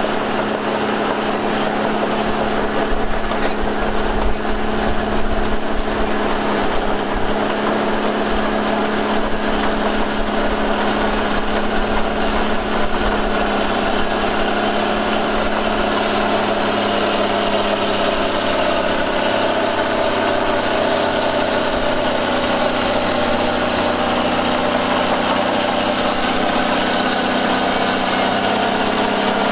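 Heavy diesel engine of earthmoving machinery running steadily, with a constant low hum and no clear revving.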